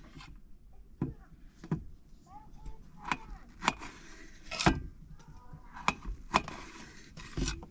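A series of irregular sharp knocks, roughly one or two a second, with faint short chirping tones between some of them.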